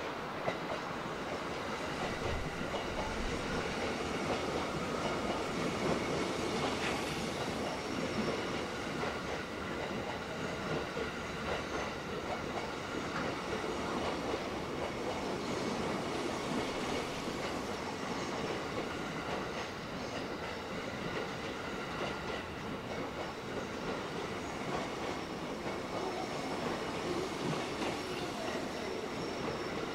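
Electric commuter train running along the platform track, its wheels clicking over rail joints, with a steady high-pitched squeal and whine.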